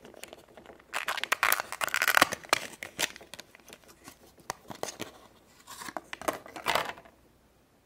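Thin plastic toy wrapper crinkling and tearing as it is pulled open by hand, in two bursts of crackling with scattered small clicks between them.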